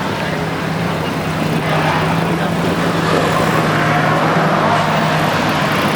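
Car engine idling with a steady low hum, over a background of outdoor noise.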